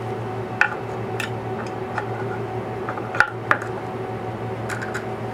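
Light clicks and clinks of the CNC's Z-probe touch plate and its clip lead being handled and set on the workpiece, the sharpest about half a second in and just after three seconds. They sit over a steady electrical hum.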